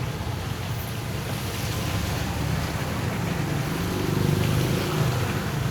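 Wind and road noise from the moving e-bike: a steady low rumble with wind buffeting the clip-on microphone, a little louder about four seconds in.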